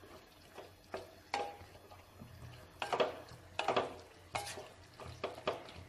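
Wooden spatula stirring cubed onion and capsicum in sauce in a non-stick pan, in a run of short, uneven scraping strokes over a faint sizzle from the high flame.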